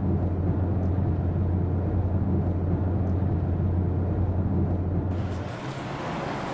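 Steady low drone of a car driving, heard from inside the cabin. It stops about five and a half seconds in.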